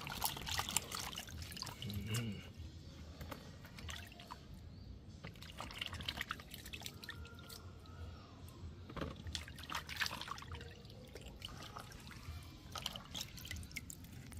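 Hands sloshing and squeezing pieces of cut-up cow head meat in a bowl of vinegar water, with water trickling and dripping off as the pieces are lifted out, in scattered small splashes.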